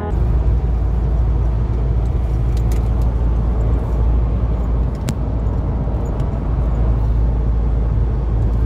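Steady low road and wind rumble inside the cabin of a Volkswagen Amarok pickup moving along the highway, with one faint tick about five seconds in.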